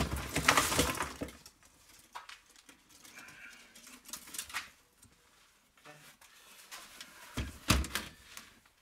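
A plastic crate being handled, and a pile of tangled copper wire scrap tipped out of it onto a workbench: rustling, scraping and clattering. There is a louder knock of the crate being lifted or set down near the end.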